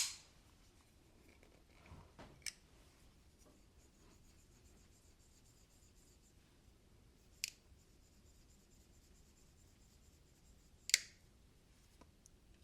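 Medford Infraction folding knife's blade being worked open and shut to spread fresh lubricant through its pivot washers: a sharp snap at the start, then single metallic clicks about two and a half, seven and a half and eleven seconds in.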